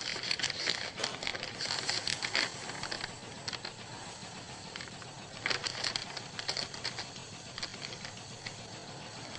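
A sheet of paper rustling and crinkling as it is unfolded and handled, in short bursts through the first two and a half seconds and again about five and a half seconds in, over a steady hiss.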